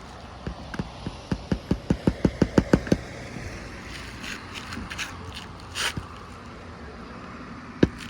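Hammer driving roofing nails into asphalt shingles: a quick run of about a dozen strikes, getting louder, then a scraping, crinkling shuffle of shingle, and near the end slower, heavier strikes start again.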